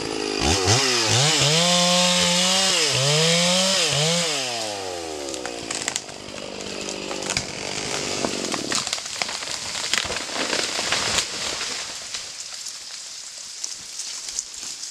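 Two-stroke chainsaw revving up and down several times, then its engine sound fading away about halfway through. Scattered sharp cracks and snaps of wood and branches follow as the tree comes down.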